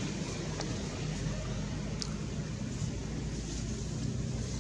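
Steady low rumble of outdoor background noise, with a faint short high-pitched blip about two seconds in.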